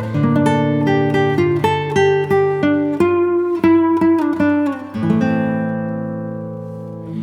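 Background music on acoustic guitar: plucked notes and chords played one after another, with a chord left ringing and slowly fading in the last couple of seconds.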